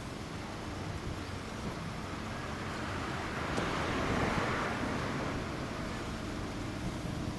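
A road vehicle passing by: traffic noise swells to a peak about four seconds in, then fades.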